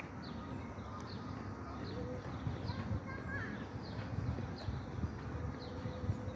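A songbird repeating a short, high, downward chirp about twice a second, over a low background rumble.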